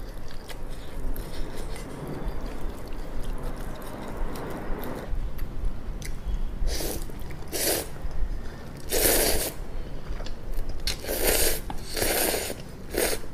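A person eating Shin Ramyun instant noodles: quiet wet chewing at first, then about six short, loud slurps as noodles are sucked in from the chopsticks, starting about halfway through.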